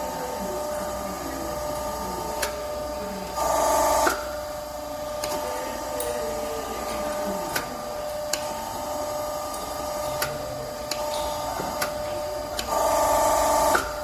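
Y120D hydraulic hose crimping machine running with a steady hum. Two louder rushes of about a second each come about three and a half seconds in and near the end, with scattered sharp clicks in between.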